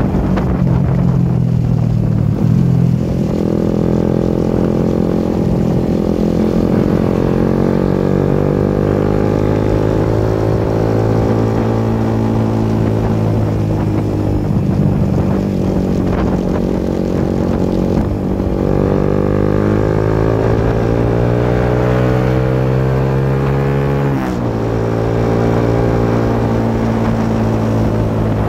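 Suzuki GSX-S150's single-cylinder four-stroke engine pulling at road speed, its pitch rising and falling with the throttle. Near the end the revs drop sharply and briefly, as at a gear change, then pick up again.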